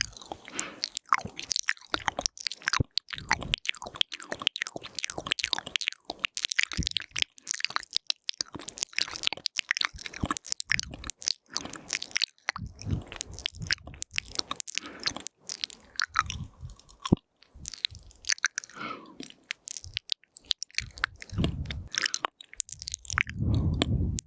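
Close-miked ASMR mouth sounds into a binaural microphone: rapid wet clicks, lip smacks and tongue sounds, with a longer, lower sound near the end.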